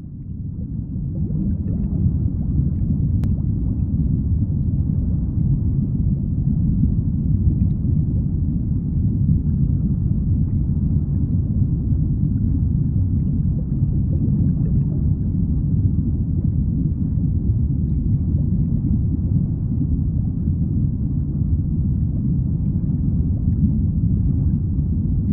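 Steady, muffled low rumbling with gurgling, a sound effect for the inside of a stomach, fading in over the first couple of seconds.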